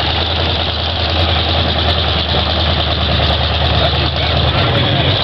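A mud-bog pickup truck's engine running with a steady low drone as the truck drives through a muddy lane.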